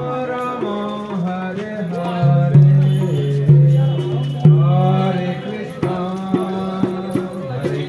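A man singing a devotional chant into a microphone through a small portable speaker, beating a double-headed barrel drum (mridanga) on his lap. Deep, ringing drum strokes fall under the voice, with a run of quicker strokes near the end.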